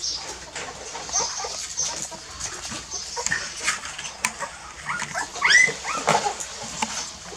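Puppies squealing and whimpering as they crowd in to nurse at their mother, with a louder run of squeals about five seconds in.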